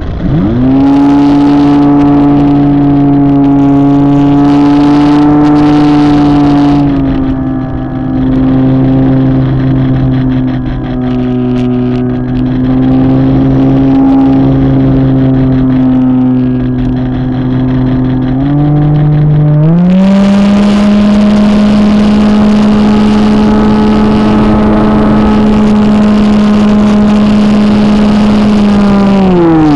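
RC model airplane's motor and propeller heard from the onboard camera, a steady drone whose pitch follows the throttle: it rises about a second in, eases down around seven seconds in, climbs in two steps to a higher pitch around eighteen to twenty seconds in, and drops away right at the end.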